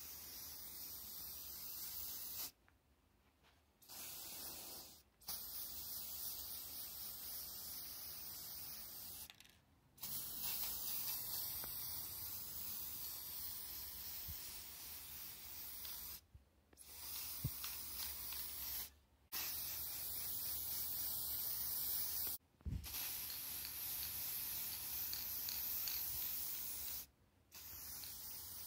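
Aerosol can of silver spray paint hissing in a series of long sprays lasting a few seconds each, with brief pauses between them.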